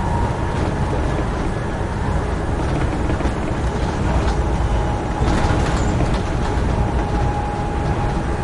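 Amtrak Northeast Regional passenger train running at speed: a steady rumble of wheels on rail with a faint, even whine and a few light clicks.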